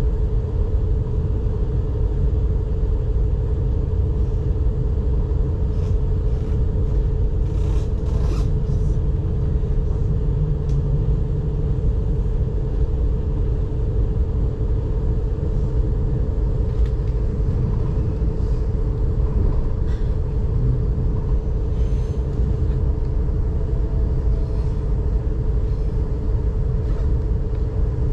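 S 9 S-Bahn electric train running at speed, heard from inside the passenger car: a steady low rumble of wheels on track under a constant hum. A few light clicks come about six to eight seconds in.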